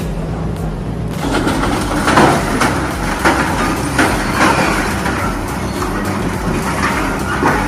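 Heavy machinery working loudly, with irregular sharp cracks and crunches over a steady rumble, cutting off abruptly near the end.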